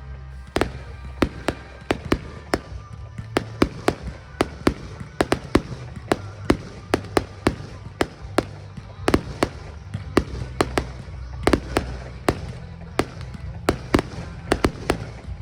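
Display fireworks going off in a rapid, irregular string of sharp bangs, several a second, over a steady low rumble.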